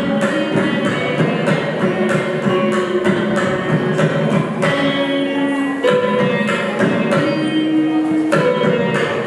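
Carnatic music on veena with mridangam accompaniment: the veena plays a melody of held notes while the mridangam keeps up a stream of drum strokes.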